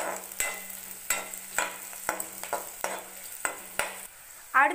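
Metal spatula scraping and stirring sliced garlic and dried red chillies in hot oil in a metal kadai, about two strokes a second over a light sizzle, as the garlic sautés. The stirring stops near the end.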